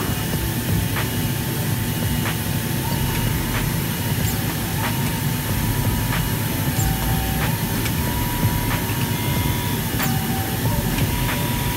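FK Group Universal 8 automatic fabric cutting machine running, its reciprocating knife head cutting through a 100-ply stack of coated fabric held down under plastic film on the vacuum table. A steady low hum runs under a whine that comes and goes several times, with scattered sharp clicks.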